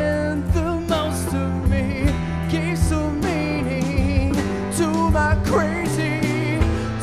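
Live band playing a rock song: electric bass, acoustic guitar and a drum kit keeping a steady beat, with a wavering melody line over the top.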